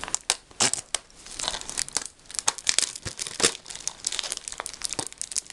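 Plastic shrink wrap on a Blu-ray case crinkling and crackling as it is handled and picked at with scissors to get it open, in many quick, irregular crackles.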